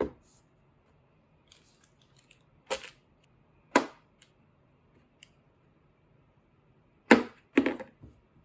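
Five sharp knocks, irregularly spaced, the last two close together near the end, with faint clicks in between.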